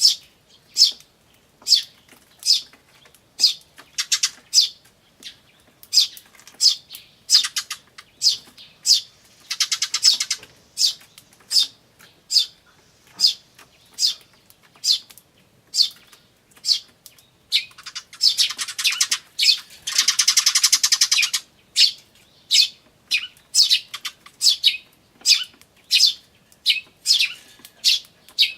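Eurasian tree sparrows, adults and chicks, calling: a steady string of short high chirps, broken by fast buzzing "jyu-jyu-jyu" chatter, briefly about ten seconds in and for about three seconds near twenty seconds.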